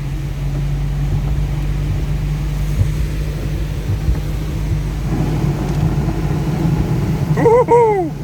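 Car engine running with a low rumble as the car drives through deep floodwater in a heavy downpour; the sound thickens about five seconds in. A short falling vocal exclamation near the end.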